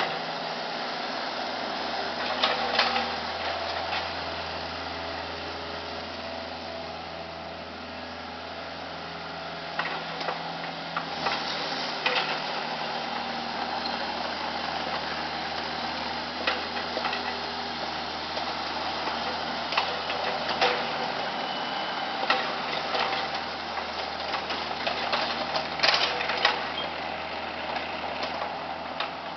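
Diesel engine of a 2007 Kubota KX121-3 mini excavator running steadily, with scattered sharp clanks and knocks from the machine, several close together about ten seconds in and again in the last third.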